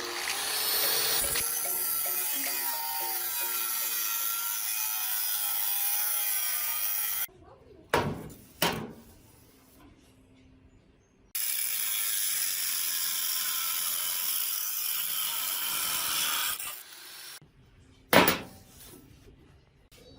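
A handheld power tool grinding against the old welding tool's parts, running steadily for about seven seconds and stopping abruptly. A few knocks follow, then it grinds steadily again for about five seconds and winds down. A single sharp knock comes near the end.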